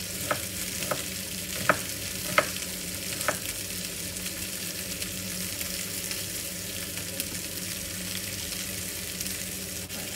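Chef's knife cutting an onion on a wooden chopping board: five sharp knocks of the blade on the board in the first few seconds, then a steady hiss with only faint ticks.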